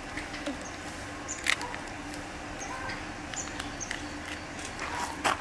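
Clear plastic snack packet crinkling in hand, with two sharp crackles, one about a second and a half in and a louder one near the end. Under it runs a steady low hum, with faint high chirps now and then.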